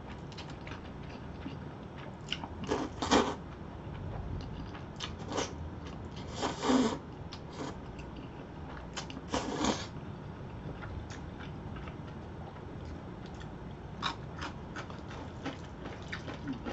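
Close-up eating sounds of jjajangmyeon black bean noodles: several short, wet slurps of noodles being sucked in, with chewing in between.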